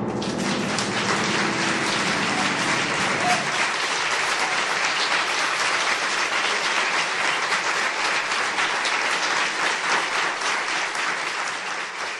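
Audience applauding: dense, steady clapping that breaks out as the last chord of the grand piano dies away under it over the first few seconds, and thins out near the end.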